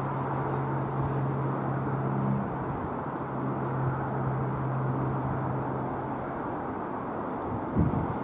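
Distant rumble of a Boeing 737-800 jet airliner landing and rolling out, over a steady low hum that stops about six seconds in. A short knock just before the end.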